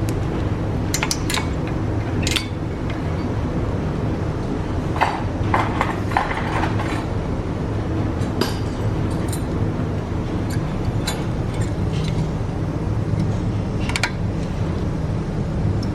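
Scattered metal clinks and light knocks of tools and brake hardware being handled, with a busier run of small clinks about five to seven seconds in, over a steady low hum.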